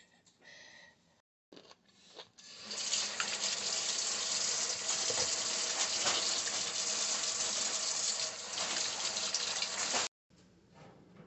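Kitchen tap running a steady stream of water into the sink. The stream comes in about two seconds in, strengthening over half a second, and cuts off suddenly near the end.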